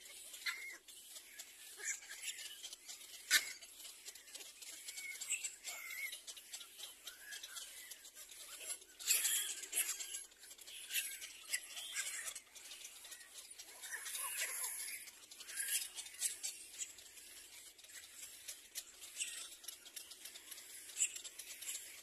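Little black cormorant chicks in the nest giving short, high squeaky calls mixed with many small clicks, scattered irregularly and loudest about nine seconds in.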